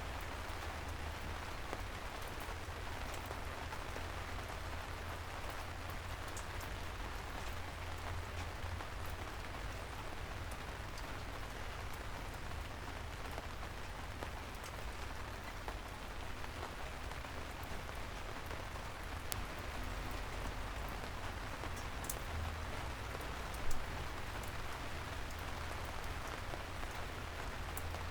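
Soft rain falling steadily on a city street, with scattered drops ticking sharply over a low steady rumble. There is one brief louder thump near the end.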